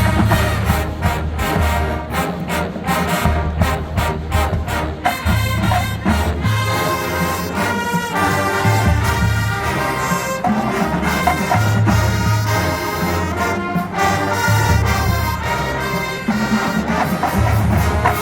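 College marching band playing with full brass and drums: short punchy brass hits for the first few seconds, then held chords.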